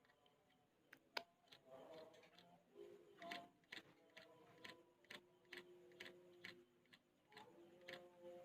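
Yellow-vented bulbul nestling begging for food with faint, short, sharp chirps, about two a second, starting about three seconds in.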